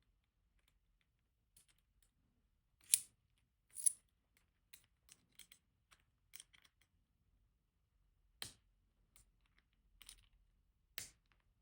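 Small metal clicks and taps from working the key and tools in a GEGE pExtra+ lock cylinder to free its core's retaining clip: two sharper clicks about three and four seconds in, light ticking between, and two more clear clicks near the end.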